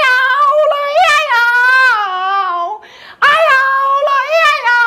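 A high-pitched human voice in two long, drawn-out, wavering cries. The first lasts nearly three seconds, and after a short break the second starts a little past three seconds in.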